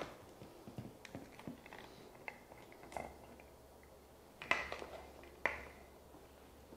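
Faint clicks and taps of handling a Blendjet portable blender and a drinking glass on a stone countertop, as the blender's plastic lid is twisted off and set down. Two sharper clicks stand out about four and a half and five and a half seconds in.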